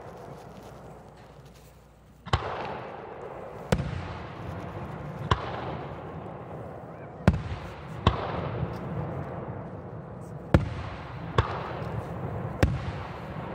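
Aerial firework shells bursting overhead: about eight sharp bangs a second or two apart, starting about two seconds in, each followed by a rolling echo.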